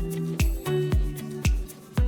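Background music with a steady beat: a kick drum about twice a second under sustained keyboard or synth chords.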